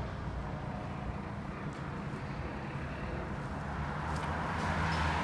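A car's engine running with a steady low hum as the hatchback drives around and comes closer, the sound growing louder with added road noise near the end.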